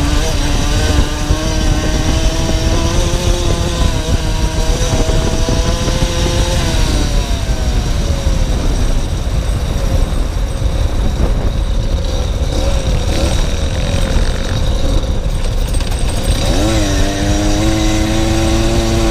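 Small motorcycle engine heard from the rider's own bike: it pulls with a slowly rising note, eases off about seven seconds in so the pitch falls and fades, then revs up sharply near the end and holds a higher note. Heavy wind rumble on the microphone.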